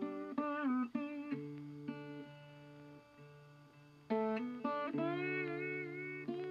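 Background music: guitar playing plucked notes that slide up and down in pitch over held low notes.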